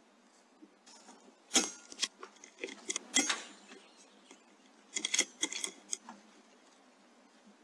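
Sharp knocks and metallic clicks: two louder knocks about a second and a half apart, then a quick run of clicks around five seconds in.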